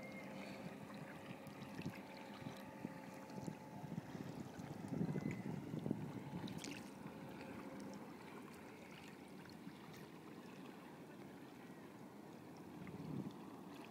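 Faint water sloshing and lapping against a kayak's hull, a little louder and more splashy about five seconds in.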